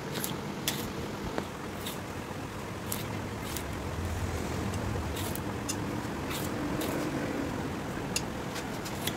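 Knife slicing through a rubber tyre while a steel hook levers the cut apart, heard as irregular sharp clicks and snaps about once a second over steady background noise, with a low rumble swelling about four seconds in.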